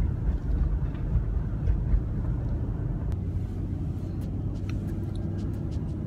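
Steady low rumble of road and engine noise inside a moving car's cabin, with a few faint clicks.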